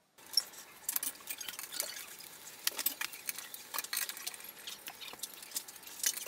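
Hand screwdriver driving a screw into a flat-pack particleboard frame: irregular sharp clicks and scrapes, with light clatter of hardware being handled.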